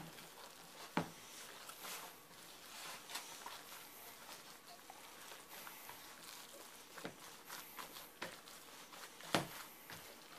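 A gloved hand squishing and kneading a moist bread-and-egg stuffing mix in a bowl: faint, uneven squelching. A few sharp clicks cut through, the loudest about a second in and near the end.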